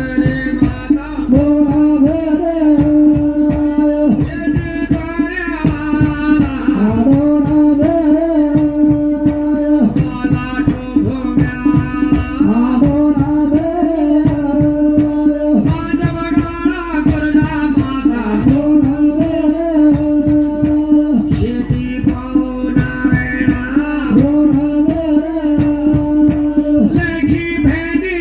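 Live Pahari folk devotional music: a voice singing a melody over a steady droning note, with fast, dense drumming throughout.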